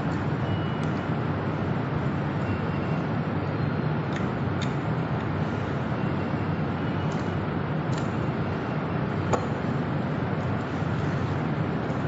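A steady, even hum and hiss of background machinery, with a few light metallic clicks and taps from hand tools and scooter parts as the front wheel axle nut is worked with a wrench.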